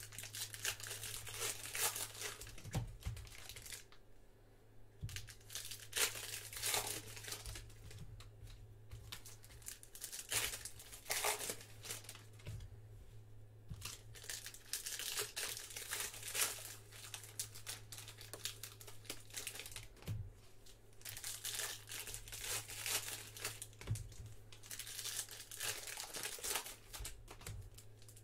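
Foil wrappers of Panini Prizm Quick Pitch baseball-card packs crinkling and tearing as they are ripped open by hand, with cards handled and stacked between packs. It comes in irregular spurts with short lulls, over a faint steady low hum.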